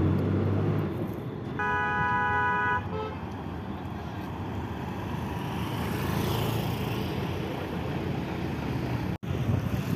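Highway traffic: a vehicle engine rumbles close by, then a horn sounds once for about a second, with a short second toot right after. Passing traffic and tyre noise follow.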